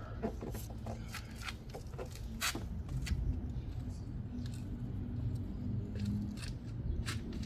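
A stiff car headliner board being manoeuvred into the roof of the cabin, giving irregular scrapes, rustles and sharp clicks over a steady low rumble.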